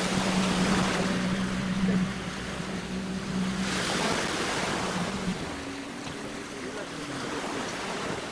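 A boat engine running over the rush of water and wind on the microphone. About five seconds in the steady engine note gives way to a higher, wavering one.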